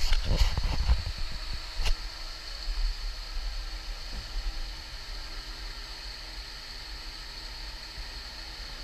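Steady background hiss over a low, unsteady rumble, with a few short knocks in the first two seconds.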